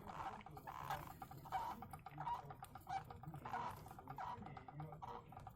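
Young hamster giving a run of soft, short squeaks, several a second, while washing itself. This squeaking is normal in young hamsters recently separated from their litter and is not a sign of illness.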